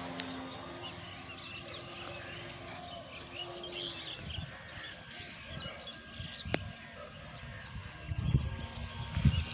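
Small birds chirping, with the faint steady hum of a model plane's electric motor fading out over the first few seconds. Low thumps of wind on the microphone near the end.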